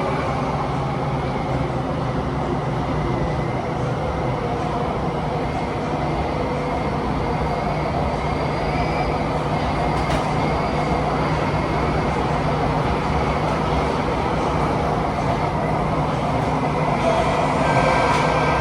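Cabin noise inside a Kawasaki-CRRC T251 metro train running through a tunnel: loud, steady wind and rail noise with a faint whine. Near the end the sound shifts as the train draws into the station.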